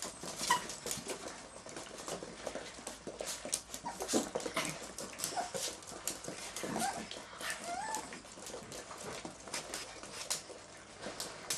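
Chinese Crested puppies at play, giving a few short whimpers and yips over many small scuffles and clicks.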